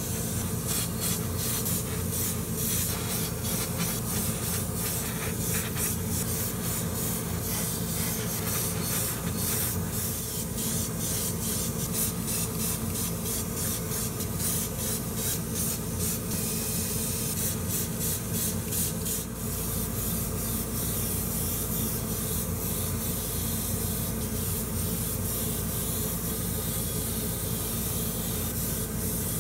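Gravity-feed airbrush spraying lacquer paint and clear coat onto small plastic model-car parts: a steady hiss of air and paint.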